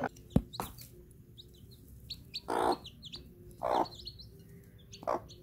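Newly hatched domestic chicks peeping: a steady run of short, high, down-sliding peeps. A sharp click comes about half a second in, and three louder, rougher sounds break in about a second apart in the second half.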